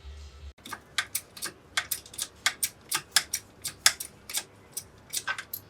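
A string of sharp clicks, irregular at about three to four a second, as a DIY shop press is worked to push the old bush out of a Honda CX500 starter motor housing with a socket.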